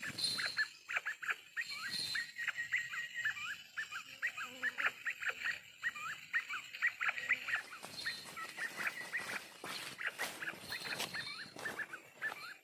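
Bird calls: a dense, unbroken run of short, quick chirping notes.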